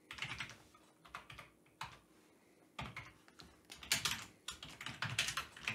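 Typing on a computer keyboard: short runs of keystrokes broken by pauses, the busiest run in the second half.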